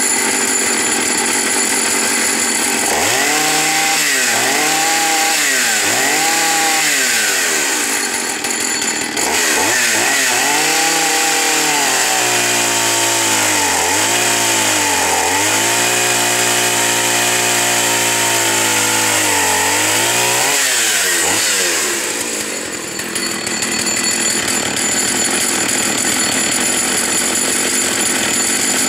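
Partner two-stroke chainsaw running at full throttle. Its engine note swings up and down a few times, then sags and recovers for about ten seconds as the chain cuts through a log. Near the end the pitch falls away and the saw keeps running.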